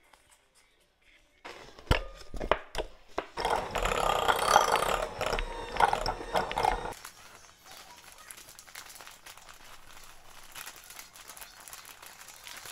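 Electric hand mixer beating butter and cream cheese in a glass bowl for frosting. It starts with a few knocks about a second and a half in, runs loud for several seconds and stops suddenly about seven seconds in. Quieter rustling and light taps follow.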